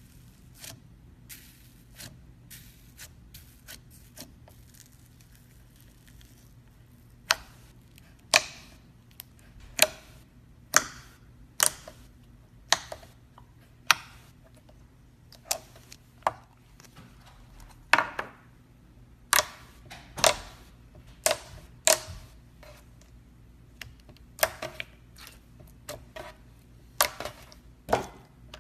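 Slime being squeezed and poked, its trapped air bubbles popping in sharp, loud clicks about once a second, after a few seconds of only faint small clicks.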